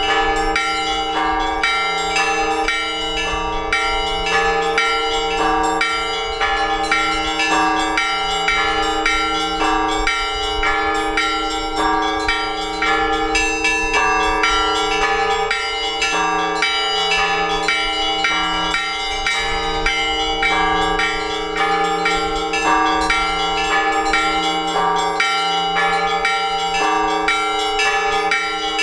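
Orthodox church bells rung together by hand in a continuous peal: quick, steady strikes on the small chiming bells over the ringing of the larger bells. The peal calls worshippers to the all-night vigil.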